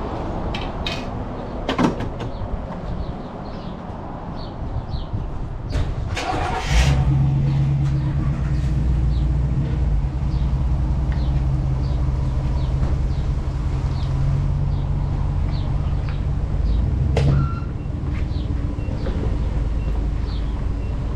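Motorcycle engine cranked and started about six and a half seconds in, then idling with a steady note. At about seventeen seconds there is a short burst, and the idle note gives way to a rougher rumble.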